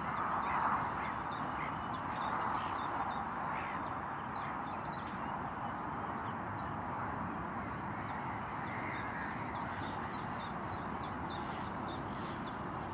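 Small birds singing, a rapid run of short, high, falling chirps, over a steady outdoor hiss. There is a brief rush of noise just under a second in.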